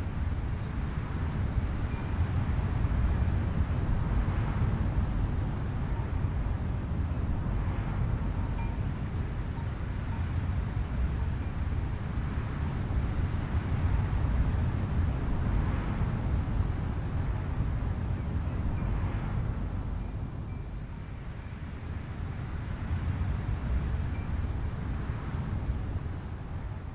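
Outdoor field ambience: a steady wind rumble that swells every few seconds, with a faint, evenly repeated high chirping of an insect such as a cricket.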